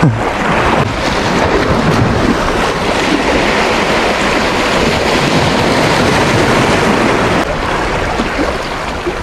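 Sea waves washing and breaking among shoreline rocks, mixed with wind rumbling on the microphone, a steady noise with no pauses.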